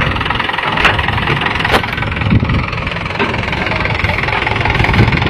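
Mahindra tractor's diesel engine running steadily, with two sharp clicks about a second in and a second after that.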